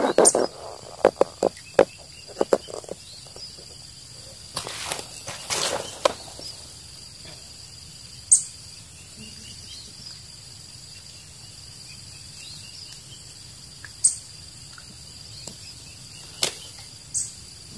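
Quiet riverside ambience with a faint, steady high insect drone, broken by scattered clicks and rustles of handling, mostly in the first few seconds. Two short rushing noises come about five seconds in, and a few lone clicks follow near the end.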